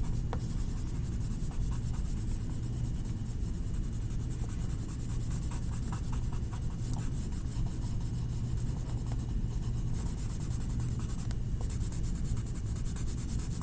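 Yellow colouring rubbed onto paper in quick back-and-forth shading strokes, a steady scratchy scribbling that fills in a drawing.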